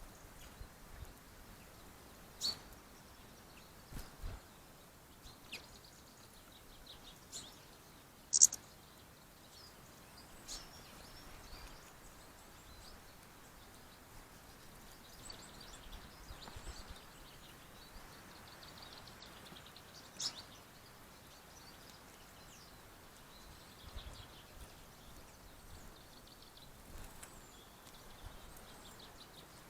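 Faint bird chirps and short trills, with a few sharp clicks; the loudest click comes about eight and a half seconds in.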